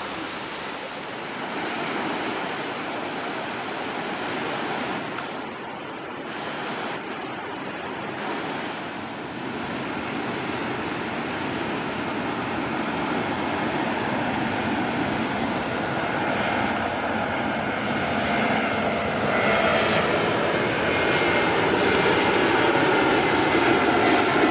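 Surf washing on the beach, with the engines of an Aegean Airbus A320neo on final approach growing steadily louder. Over the last several seconds steady engine tones come in over the noise as the jet closes in.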